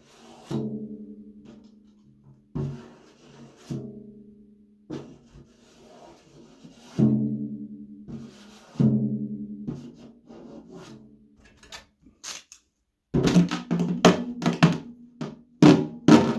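Resonant drum-like percussion hits, each ringing with a low pitched tone for a second or two, struck every second or so, then a quick run of louder hits near the end.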